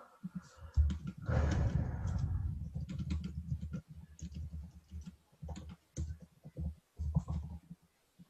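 Typing and clicking on a laptop keyboard: irregular keystrokes with dull thuds, and a denser run of strokes about a second in.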